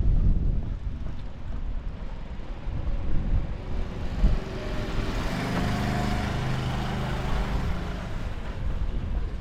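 A motor vehicle drives past, its engine and tyre noise swelling to a peak about six seconds in and fading away, over the low rumble of wind buffeting the microphone.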